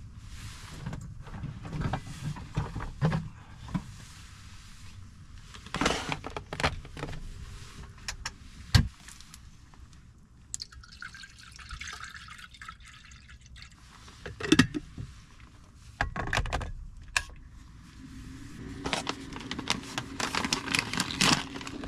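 Knocks and clatters as a kettle and water jug are handled and set down, with water poured from a large plastic jug into a stainless kettle for a few seconds about halfway through.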